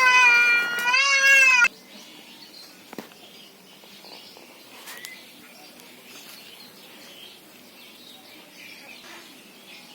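A small child crying: two long wails in the first second and a half, then only faint background sounds.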